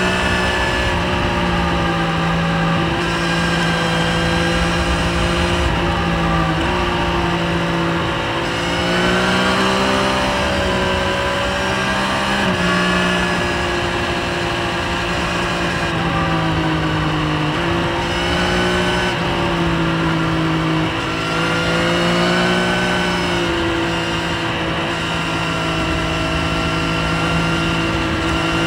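Triumph Street Triple 765 RS inline-three engine heard from the rider's seat under way, its note rising and dropping in steps every few seconds as the throttle and gears change through the corners, with wind rushing over the microphone.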